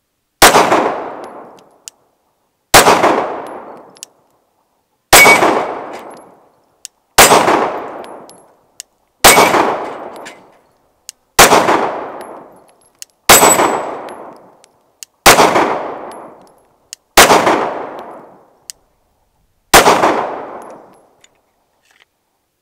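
Ten 9mm shots from a Glock 19 Gen 3 pistol with a Brownells slide, fired at a steady pace of about one every two seconds, each followed by a long echo. The pistol cycles through all ten rounds without a malfunction.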